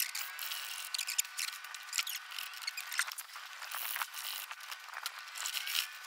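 Hand hacksaw sawing back and forth through the stranded steel cable of a coiled bike lock, a run of scratchy, rasping strokes of metal on metal.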